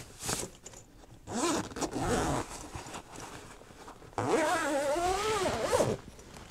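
Zipper of a padded soft rifle case being pulled open in two runs: a short one about a second in and a longer one about four seconds in. Its whine rises and falls as the pull speeds up and slows.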